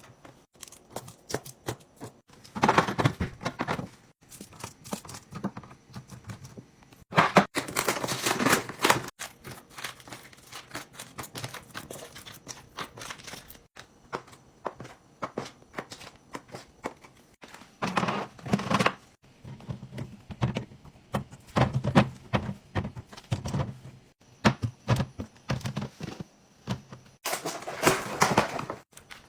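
Restocking sounds from handling packaged food and containers: many clicks and taps as items are set down, with several bursts of plastic packaging crinkling lasting a second or two.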